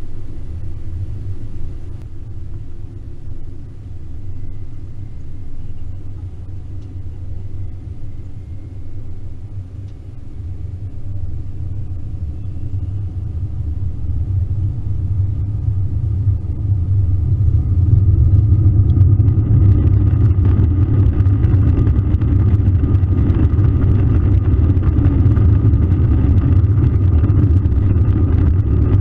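Airbus A321 cabin noise: a steady low engine and airframe rumble while taxiing, then, about halfway through, the engines spool up to takeoff thrust for a rolling takeoff and the rumble grows much louder and fuller.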